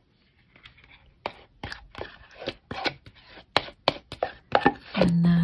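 Metal spoon scraping thick lobster bisque out of plastic tubs and tapping against the tub and the cast-iron pot: a run of sharp, irregular clicks and knocks, about two to three a second.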